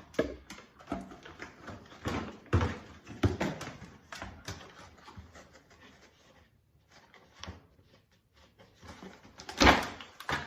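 Handling noise from unpacking a new Kwikset door handle: irregular clicks, knocks and rustling of the box and its hardware, with one loud knock near the end.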